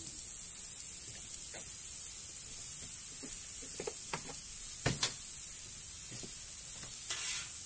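Mushroom, garlic and onion mix sizzling on a Blackstone flat-top griddle, a steady high hiss, with a few light clicks and knocks about halfway through.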